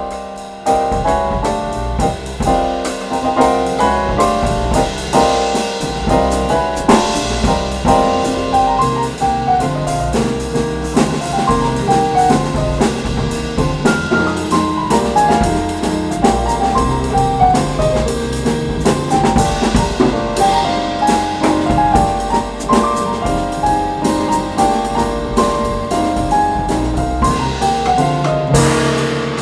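Jazz piano trio playing live: acoustic piano carrying busy melodic lines and runs over double bass and drum kit.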